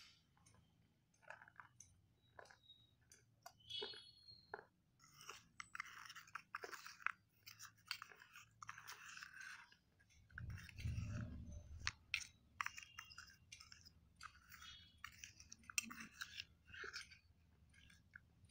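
Spoon stirring a wet paste of soaked slate pencil pieces in a steel bowl: quiet squelching and scraping with scattered crisp clicks, and a dull bump about ten seconds in.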